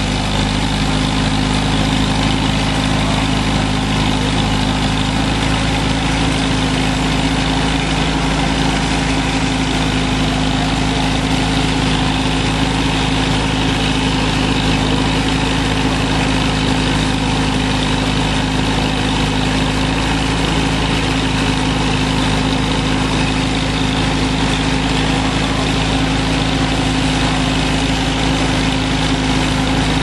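Antique tractor engine running steadily at a constant speed, driving a sawmill through a long flat belt from its belt pulley.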